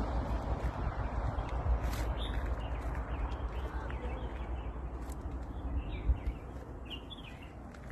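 Small birds chirping repeatedly over a low, fluctuating rumble that fades toward the end.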